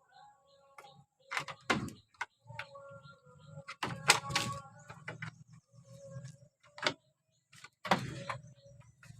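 A doe goat that has recently given birth coughing several times in short, sudden bursts.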